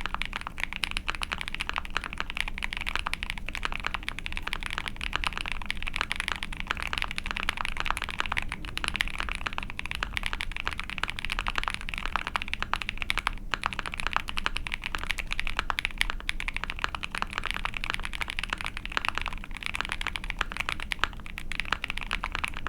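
Continuous fast typing on an Ai03 Vega mechanical keyboard with a POM plate, GMK keycaps and Krytox-lubed Iced Milk Frankenswitch linear switches (nylon Ice Candy stem, Gateron Milky top, nylon H1 bottom). Dense, even keystroke clacking, a little high-pitched.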